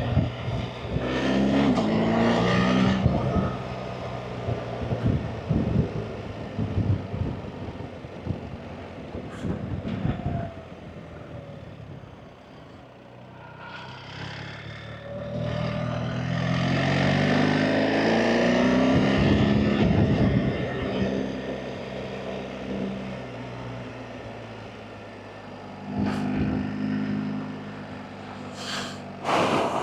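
BMW R 1300 GS Adventure's boxer-twin engine on the road, revving up and easing off in turns. The pitch climbs about a second in, again over a longer pull from about fifteen to twenty seconds, and briefly near the end, and it sinks in the lulls between.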